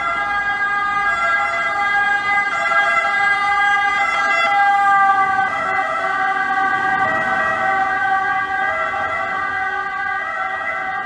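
Emergency-vehicle sirens sounding continuously: several steady tones that step back and forth between pitches about once a second.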